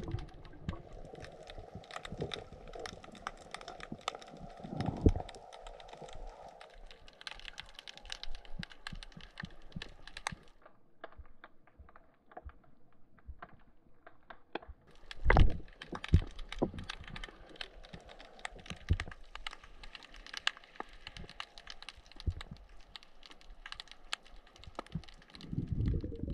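Underwater crackling: a dense run of irregular clicks and snaps, thinning out a little past the middle, with two louder knocks about five and fifteen seconds in.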